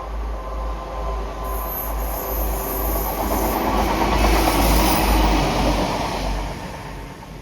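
A train passing, its sound building to a peak about four to five seconds in and then fading, with a high squeal from the wheels on the rail during the loudest part. A low wind rumble on the microphone runs throughout.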